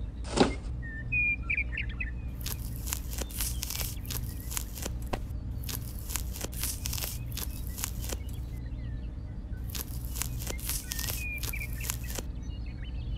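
Birds chirping a few times over a steady low hum. There is a sharp knock about half a second in, then a run of small clicks and rustles from about two seconds on as a plastic tube is handled and pushed onto a small model water pump's outlet.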